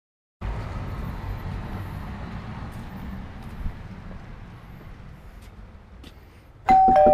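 A low outdoor rumble that slowly fades, then near the end a two-note doorbell chime: a higher note followed by a lower one, ding-dong, both ringing on.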